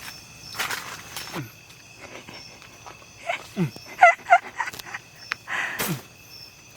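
Crickets chirping steadily in the background, with rustling in the tent twice and a few short vocal exclamations in the middle.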